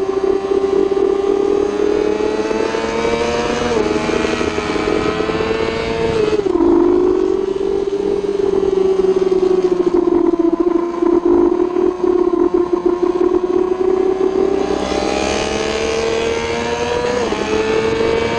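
Racing superbike engine at high revs under the rider, pulling hard with a quick upshift about four seconds in, then dropping in pitch as it slows for a corner, holding a steady note, and climbing again with another upshift near the end. Wind rushes over the bike throughout.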